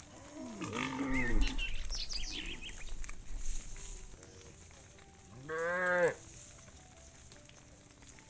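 Cattle mooing: a long moo about a second in, then a shorter moo that rises and falls in pitch around five and a half seconds in.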